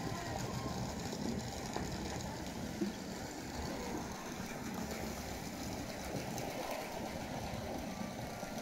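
Steady low rumble of outdoor background noise, with faint voices of people talking and a single sharp click about three seconds in.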